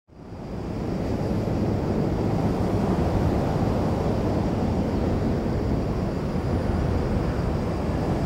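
Steady low rumble of a distant high-speed train crossing a railway bridge, fading in over the first second.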